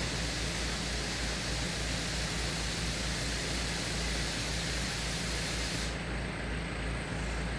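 Heavy diesel machinery running steadily: a low engine drone under a broad hiss. The upper part of the hiss drops away abruptly about six seconds in.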